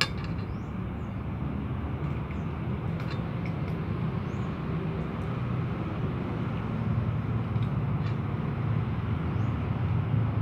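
Steady low background rumble, with a few faint scattered clicks of cats chewing food out of plastic tubs.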